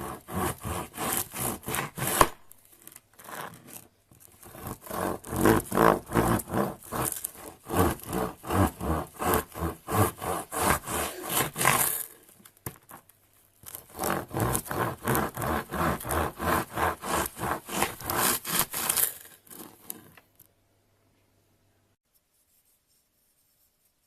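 Hands working slime in a steady rhythm, about three pressing or rubbing strokes a second, in three spells with short pauses between them. The sound fades out and stops a few seconds before the end.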